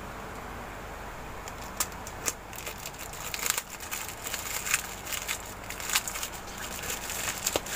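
Plastic courier mailer being torn open and crinkled by hand: a run of irregular crackles and tearing sounds starting about two seconds in.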